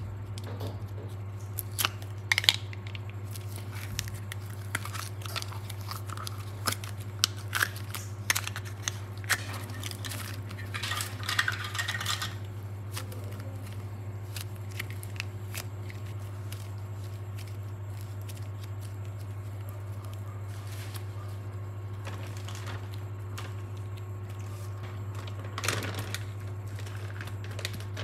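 Hard clear-plastic clay case clicking and crackling as it is handled and opened, with a short stretch of crinkling about eleven seconds in. Quieter handling of the clay follows, and another brief crackle near the end, over a steady low hum.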